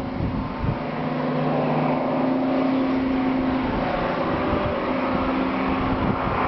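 Class 55 Deltic diesel locomotive under power as it approaches. Its twin Napier Deltic two-stroke engines give a steady droning hum that grows louder over the first couple of seconds.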